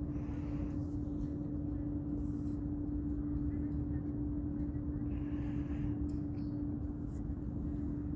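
A steady mechanical drone held at one even pitch, over a low rumble.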